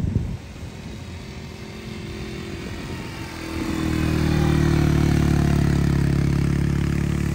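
Quad bike (ATV) engine running at a steady speed as it drives along the sand, getting much louder about three and a half seconds in as it passes close and then holding an even tone. A brief thump right at the start.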